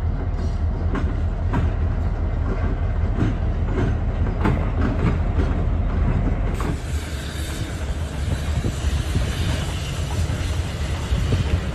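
Canadian Pacific Kansas City diesel locomotives passing close by, a low engine rumble with the sharp clicks of wheels going over the rail. About two-thirds of the way through, the sound changes abruptly to a steadier rushing noise with fewer clicks.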